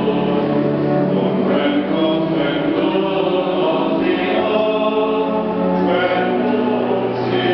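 Voices singing together in a sacred hymn, the notes held long and moving slowly from one to the next.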